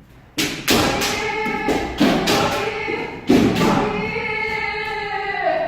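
Several kendo practitioners shouting long, drawn-out kiai together, with sharp thumps from stamping feet and strikes; fresh shouts start about half a second, two and three seconds in, and the last one drops in pitch as it ends.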